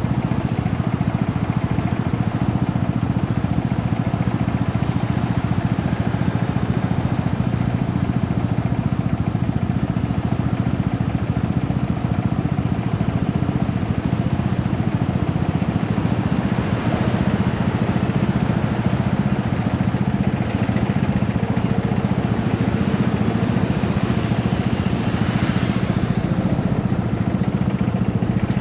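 Yamaha SRX400's single-cylinder engine running steadily. The bike's owner suspects a blown transmission and a slipping clutch.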